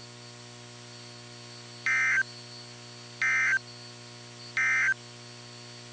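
NOAA Weather Radio Emergency Alert System end-of-message code: three short bursts of buzzy digital data tones, roughly a second apart, marking the end of the alert. A steady low hum runs underneath.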